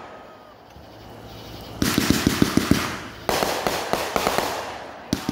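Aerial fireworks going off. After a lull of about two seconds, a rapid volley of sharp pops and bangs comes, then a second volley about a second and a half later that dies away.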